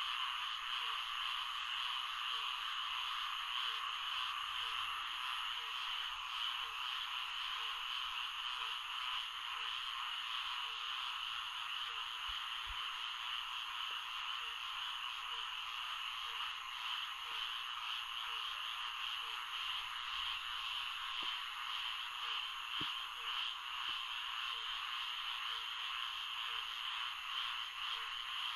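Swamp frog chorus: many frogs calling at once in a dense, steady trilling, with a lower short call repeating a little more than once a second.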